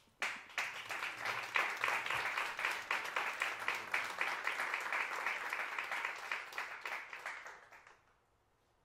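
Concert audience applauding: a dense patter of many hands clapping that thins out and dies away about eight seconds in.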